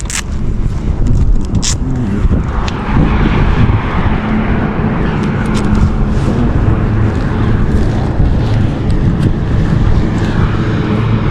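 Ducati Streetfighter 848's L-twin engine running under way at a fairly steady engine speed, with air rushing past. A couple of sharp clicks sound near the start.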